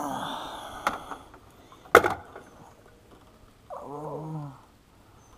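Landing net being handled in a metal jon boat: a rustle, a light knock about a second in, then a sharp, loud knock about two seconds in as gear hits the hull. Near four seconds a man gives a short grunt.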